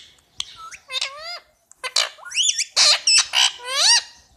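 Indian ringneck parakeet chirping: a quick run of about eight short, shrill calls, most sweeping down and then up in pitch, with a couple of harsher squawks near the middle.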